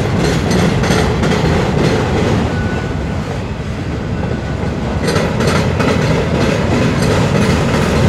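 Freight train of autorack cars rolling past: a steady, loud rumble of steel wheels on rail, with clusters of clickety-clack as wheel sets cross rail joints around the start and again about five seconds in.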